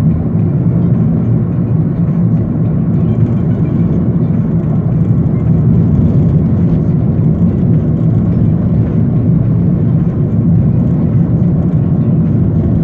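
Steady low rumble of a car driving at an even pace: road and wind noise with no breaks or changes.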